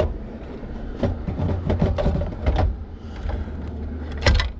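Irregular clicks, knocks and scraping of a car's factory radio being worked loose from behind the dashboard, with a louder knock near the end.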